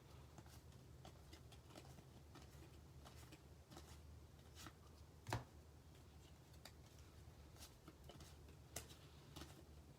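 Faint ticks and soft rustles of baseball trading cards being flipped through by hand, one after another, with a sharper tap about five seconds in. A faint steady low hum runs underneath.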